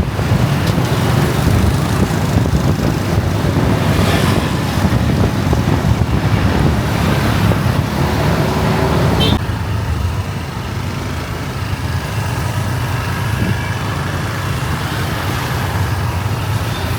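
Steady street traffic: engines running past with a continuous low rumble, the sound changing abruptly about nine seconds in.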